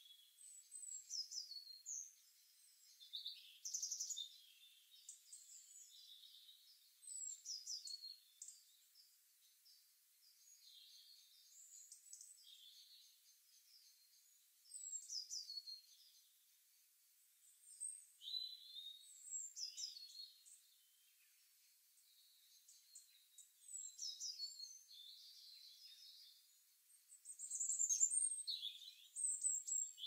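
Songbirds singing faintly, from a nature sound-effects recording: short high, chirping phrases, many falling in pitch, coming every few seconds, loudest near the end.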